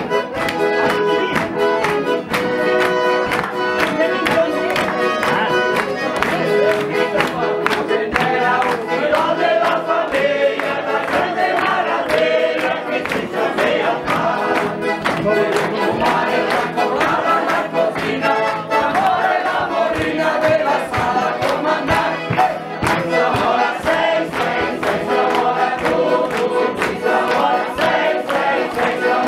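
Italian-Brazilian folk song: several voices singing together in chorus over band accompaniment with a steady, even beat.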